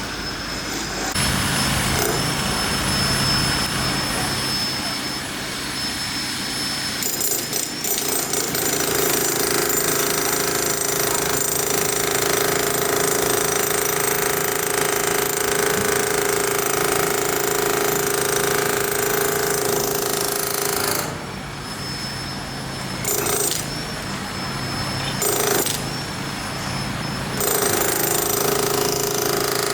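Jackhammer hammering without pause, then stopping and starting again three times in short breaks near the end.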